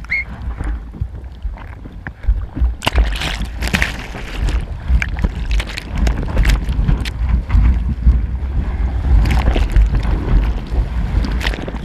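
Whitewater of a broken wave churning and splashing over an action camera at water level, with wind rumbling on the microphone; the splashing gets loud about three seconds in and keeps coming in uneven bursts.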